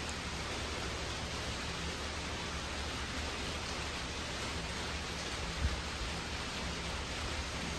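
Steady hiss with a low hum underneath, and one soft, brief thump a little past halfway.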